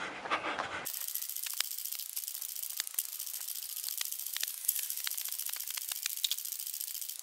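Handheld camera jostling while its holder runs: quick, irregular clicking and rattling over a steady high hiss, which takes over abruptly about a second in.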